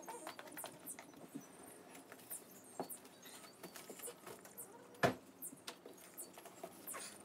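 Ford Fiesta ST hatchback's liftgate being shut, a single thump about five seconds in, faint with distance. Around it, scattered faint clicks and ticks from the cardboard box being handled.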